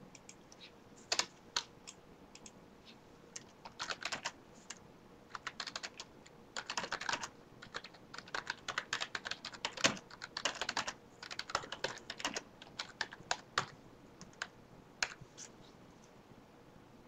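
Typing on a computer keyboard: runs of quick keystrokes broken by short pauses, dying away near the end.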